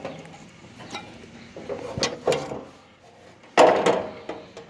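A few sharp knocks and clanks from a metal front cross member and its bolted-on brackets being handled. The loudest comes about three and a half seconds in, with a short ring after it.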